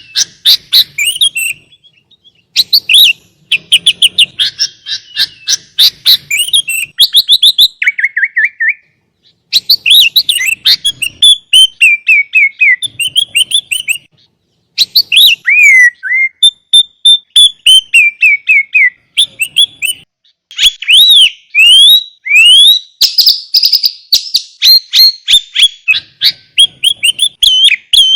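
Sooty-headed bulbul (kutilang) singing a long, varied song: fast chattering trills and sliding whistled notes in phrases of a few seconds, with brief pauses between them.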